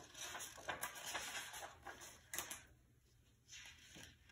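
Paper pages of a picture book rustling and crackling as they are turned by hand, for about two and a half seconds, then a couple of short rustles near the end.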